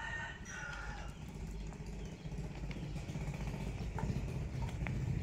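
A rooster crows briefly in the first second, then a low steady drone grows louder, with a few sharp clicks near the end.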